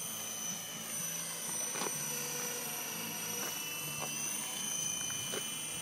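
Raptor radio-controlled model helicopter flying: a steady high-pitched whine with a lower hum underneath.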